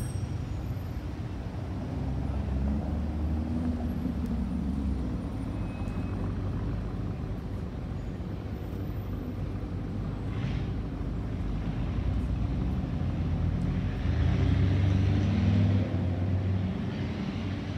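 Lamborghini Urus twin-turbo V8 exhaust running at low speed in city traffic with a low steady note, swelling louder about fourteen seconds in as the SUV pulls away.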